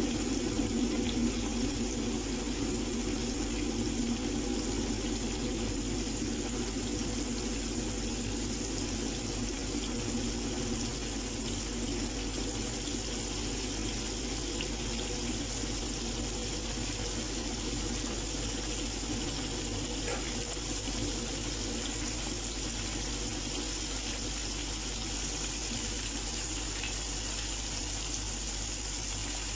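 Battered chicken pieces deep-frying in hot oil in a shallow pan: a steady bubbling sizzle, a little louder in the first few seconds.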